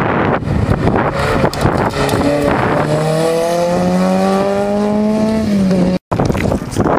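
Rally car engine approaching under hard acceleration: a gusty rush of wind on the microphone at first, then the engine note climbs steadily in pitch for about three seconds and drops away as the driver lifts. The sound cuts off abruptly about six seconds in, then the wind noise returns.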